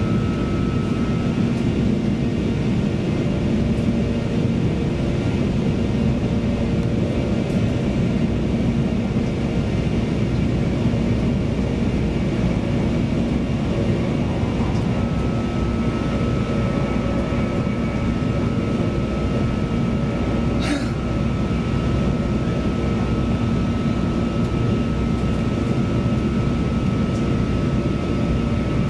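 Cabin noise inside a CAF Class 331 electric multiple unit cruising at speed: a steady rumble of wheels on the rails and running gear. A thin steady whine drops out a second or so in and returns about halfway, and a brief sharp sound comes about two-thirds of the way through.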